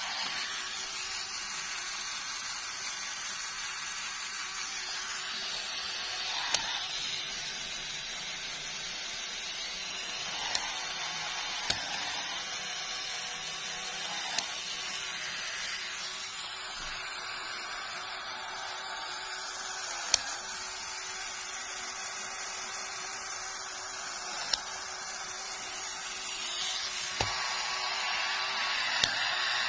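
Small LEGO electric motor running steadily, whirring as it drives the plastic gears of a LEGO Technic gearbox, with a sharp click every few seconds as the gear selector is shifted.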